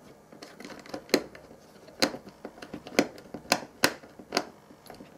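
A series of sharp clicks and taps, about six louder ones spaced irregularly, from fingers fitting a fly lead into a small plastic screw-terminal connector on a circuit board.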